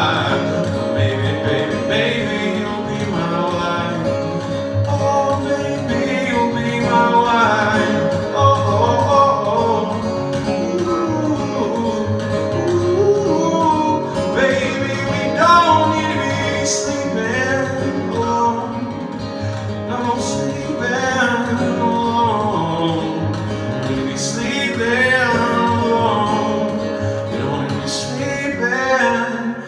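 Acoustic guitar strummed steadily, with a man's voice singing over it.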